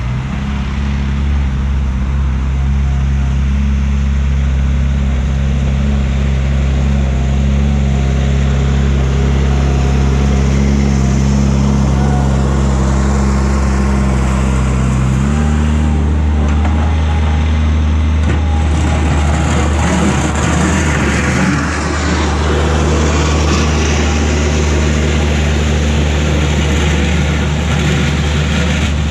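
Bobcat 463 skid steer's engine running steadily as the machine works up the driveway with a homemade snow plow; its pitch steps up sharply about halfway through and the sound turns rougher after that.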